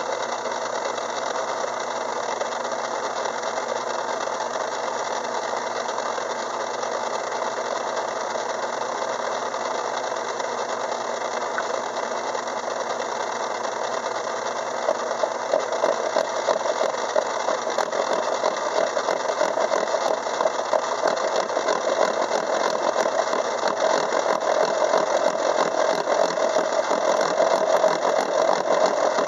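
Craftsman 6-inch metal lathe running steadily, driving a gear cutter through a steel change-gear blank to cut a tooth space. From about halfway it grows louder and rougher as the cut goes on.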